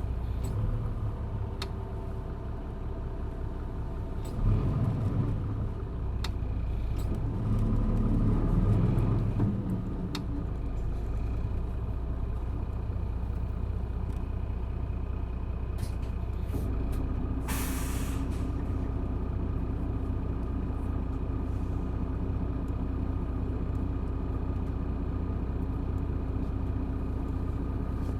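Isuzu Erga city bus's 6HK1 diesel engine heard from inside the cabin, swelling louder twice in the first ten seconds, then running evenly. Near the middle comes a short hiss of air from the bus's air brake system.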